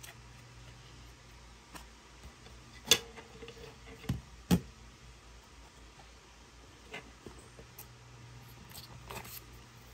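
Handling of clear hard-plastic packaging: a sharp plastic click about three seconds in, then two dull knocks about a second later as the plastic tray and the device are set down on the table. Lighter clicks and a soft rustle of the paper insert follow near the end.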